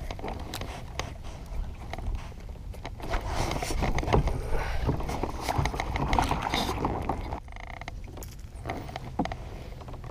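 Gear being handled in a kayak: scattered clicks and knocks, and cloth rustling as a sleeve brushes across the camera, over a steady low rumble.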